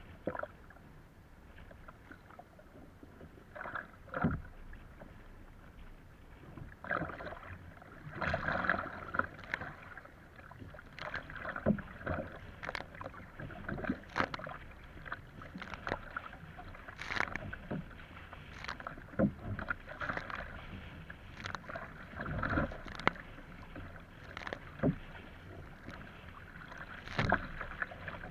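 Water splashing around an Epic V7 surfski paddled through choppy beam waves: paddle blades entering the water and waves slapping the hull in irregular splashes, roughly once a second after the first few seconds, over a steady rush of water.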